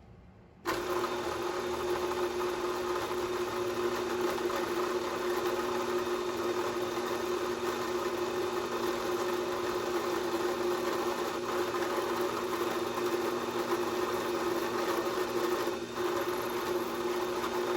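Electric drill running steadily, driving a number 50 twist drill through a small metal part to make a through hole. It starts suddenly about a second in, with a short dip near the end.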